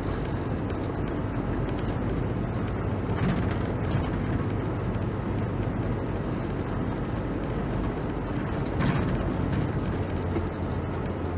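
Steady vehicle engine and road noise from driving slowly, a continuous low hum, with two brief louder noises about three and nine seconds in.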